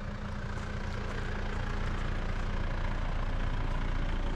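A vehicle engine running steadily: a low, even hum under a rush of noise that grows slightly louder.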